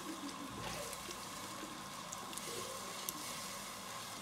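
A pot of chopped vegetables in broth simmering on the stove, giving a steady soft sizzling hiss, with a few faint clicks.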